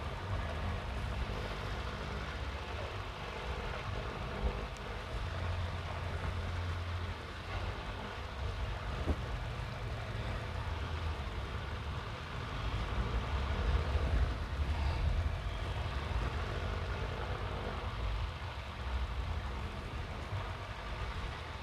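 Steady low rumble of room and background noise, with the rustle of cotton shorts and trousers being pulled from a pile and handled.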